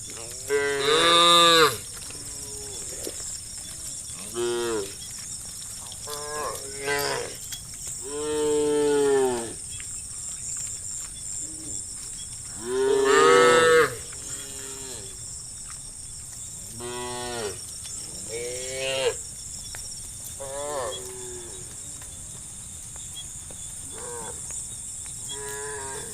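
Cows mooing over and over, one call after another from several animals. Each moo rises and falls in pitch, some near and loud, others fainter.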